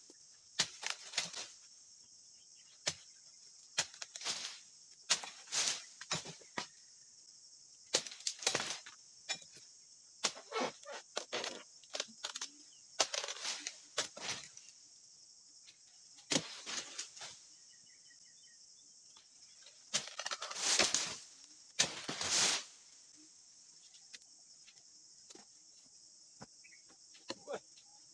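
Irregular sharp chopping strokes and leafy rustles as a dodos, a chisel blade on a pole, is driven into oil palm frond bases and the cut fronds fall and drag through the leaves. A steady high insect drone runs under it. Two longer rustling swishes come in the last third.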